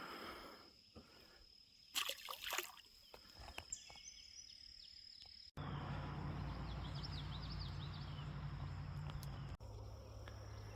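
Outdoor ambience with a steady high-pitched insect drone. A short rustle about two seconds in; about halfway through it cuts suddenly to a louder steady low hum with a few faint bird chirps, and cuts again near the end.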